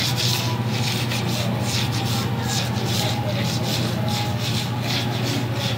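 Chopped vegetables sizzling on a hot hibachi griddle, a steady crackling hiss, over a constant low hum.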